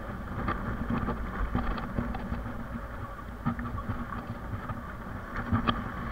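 Yamaha motorcycle engine running at low speed on a rough dirt track, a steady low hum broken by scattered knocks and rattles as the bike jolts over the stones.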